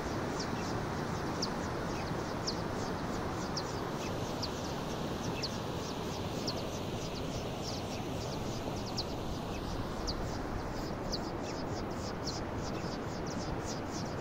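Steady rushing of a river, with a small bird's short high chirps repeating two or three times a second, coming more often toward the end.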